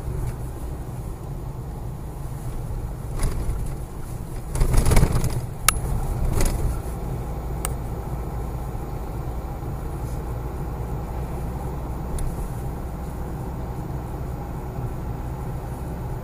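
Car driving at road speed, heard from inside the cabin: a steady low rumble of engine and tyres. About five seconds in there is a brief louder thump, followed by a few sharp clicks.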